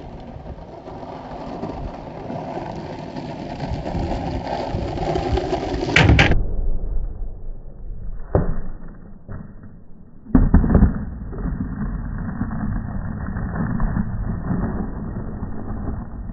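Skateboard wheels rolling over rough asphalt, growing louder, then a sharp clack of the board hitting down about six seconds in. A few lighter knocks follow, then a loud double clack a little after ten seconds, and steady rolling again.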